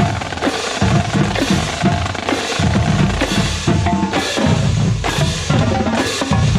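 A marching band drumline playing a cadence, with bass drums thumping under rapid snare drum strokes and rolls.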